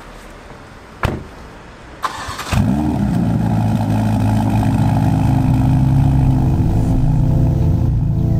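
A car door shuts with a thud about a second in. Then the Ferrari Portofino M's twin-turbo V8 cranks briefly and fires about two and a half seconds in. It flares up in revs on start and settles into a steady idle.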